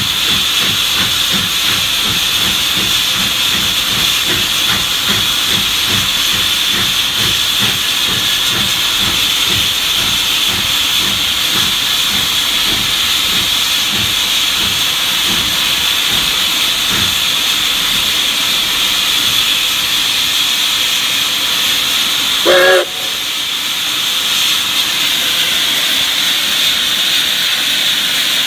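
Steady loud steam hiss in the cab of Denver and Rio Grande Western K-36 steam locomotive #488, over the low rhythmic exhaust chuff of the working engine. Late on, a single short steam whistle toot.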